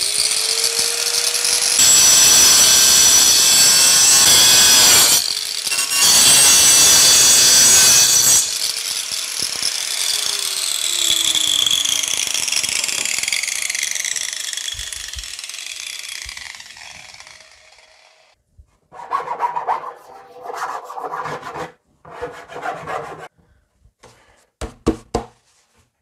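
Angle grinder spinning up and cutting through a plastic drum, biting loudest in two long passes, then winding down with a falling whine that fades out over several seconds. Near the end come short knocks and scrapes as the cut plastic drum halves are handled.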